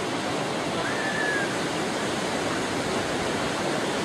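Steady, even rushing of surf at the shore. A faint, short high-pitched call comes about a second in.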